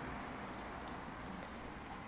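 Quiet room tone: a faint, steady hiss with no distinct sounds.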